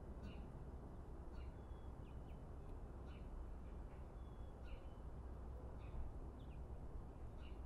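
A small bird chirping, short high calls repeated about once a second, over faint steady low outdoor rumble.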